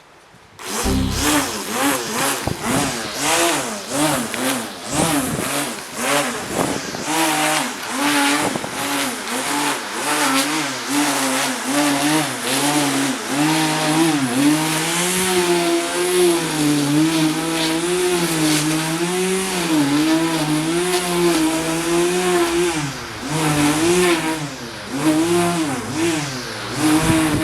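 Corded electric edge trimmer running and cutting grass. Its motor whine starts about a second in and rises and falls in pitch as the load changes, with a rapid clatter of the line striking grass in the first half.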